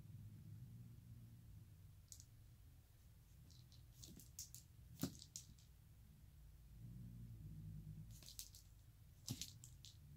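Near silence over a faint low hum, broken by a few small clusters of light clicks and taps from a cat wand toy on a wire being jiggled and dropped. The sharpest tap comes about five seconds in.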